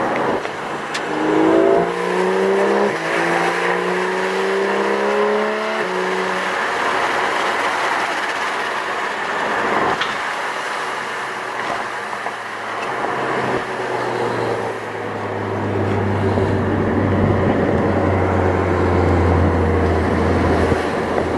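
Porsche 991 GT3 RS's naturally aspirated flat-six accelerating hard, its note rising and dropping back through two quick upshifts in the first few seconds, heard from inside the cabin. Then road and wind noise, with a low engine drone building near the end.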